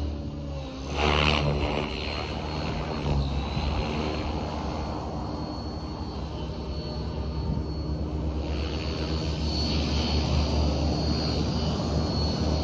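Align T-Rex 600E Pro electric RC helicopter flying: a steady high motor whine over the low hum of the spinning rotor blades, with a loud swell about a second in.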